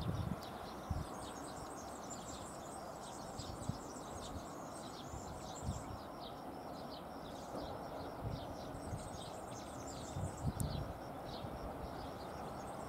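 Small birds chirping and singing continuously over a faint steady background rumble, with a few brief low thumps.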